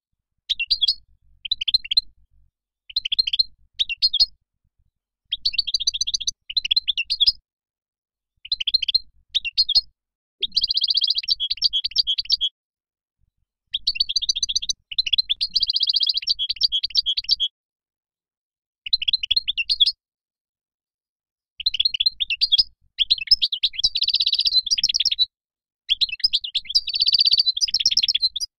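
European goldfinch singing: quick runs of high twittering notes in phrases of one to three seconds, broken by short pauses.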